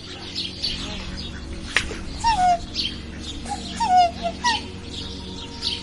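Birds calling: a short call that drops in pitch, repeated several times, over many quick high chirps, with one sharp click a little under two seconds in.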